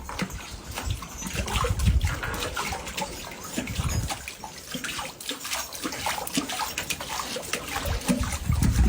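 Water splashing and sloshing, with many irregular clicks and a few low thumps.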